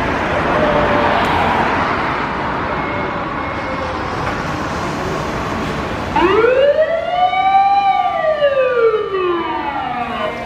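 Street traffic noise, then about six seconds in a fire engine's siren winds up in one rising wail and slowly falls away, with steady higher tones sounding alongside it.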